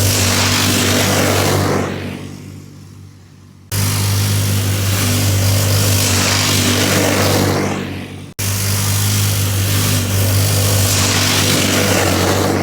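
Small 120 youth snowmobile engine running at steady high revs. It fades twice as the machine pulls away, and abrupt jumps back to full loudness about 4 and 8 seconds in mark cuts in the footage.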